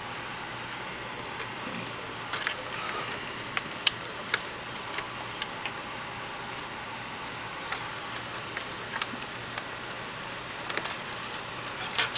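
Irregular small clicks and rattles of plastic wire-harness connectors being pushed onto their board headers, with cables handled against the sheet-metal chassis of an LCD monitor, over a steady faint hiss and low hum.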